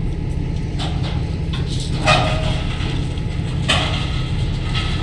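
Ballast work train running with a steady low rumble, broken by short harsh noises about two and three and a half seconds in.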